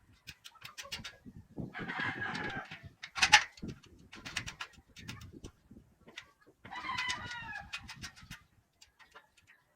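A rooster crowing twice, each crow about a second long, among scattered knocks and clicks; a sharp knock just after the first crow is the loudest sound.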